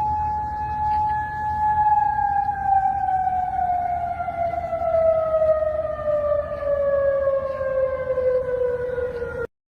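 Warning siren tone of an emergency alert, with a low rumble underneath. The tone holds steady for about a second and a half, then slides slowly and evenly down in pitch, as a siren winding down does. It cuts off abruptly just before the end.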